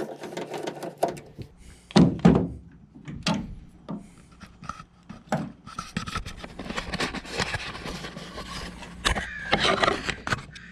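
Irregular knocks, clunks and scraping of hands and tools working on a pickup tailgate's hinge hardware, with two louder knocks, one about two seconds in and one near the end.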